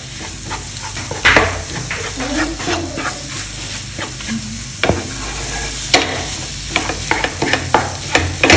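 Minced chicken masala filling being stirred and turned in a hot frying pan: the filling sizzles while the spoon scrapes against the pan in many irregular strokes.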